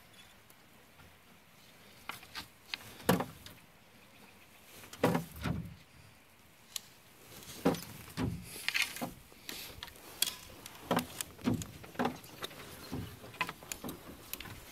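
Irregular knocks and scrapes of a wooden canoe paddle and brush against a fiberglass-kevlar canoe hull as the canoe is poled through a brushy bank, starting about two seconds in.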